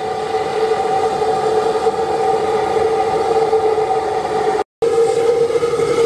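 Home-made compressed-air spray oil burner running at full flame: a steady roar carrying a constant droning tone. The sound cuts out for a split second about four and a half seconds in, then carries on unchanged.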